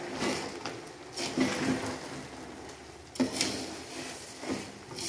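Wooden spoon stirring raw rice grains in a metal pot: uneven scraping, rustling strokes of spoon and grains against the pot wall.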